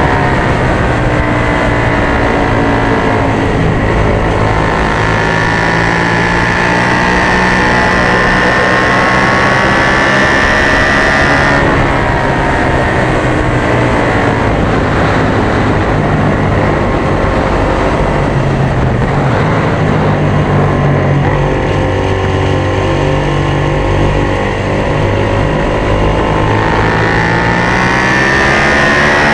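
Onboard sound of a Suzuki SV650 V-twin race motorcycle under hard acceleration, the engine note climbing steadily along a straight. It changes abruptly and falls about twelve seconds in as the rider shuts off, then rises again through the corners, with constant wind rush over the bike.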